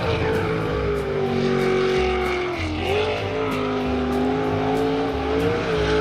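A motor running at a steady pitch that dips briefly and comes back up about two and a half seconds in, over background music with a steady beat.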